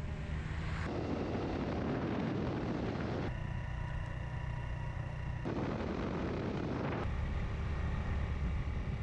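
Riding sound from a Suzuki GN125 motorcycle on the road: heavy wind rumble on the camera's microphone mixed with the small single-cylinder engine running. The sound changes abruptly several times as short clips are cut together.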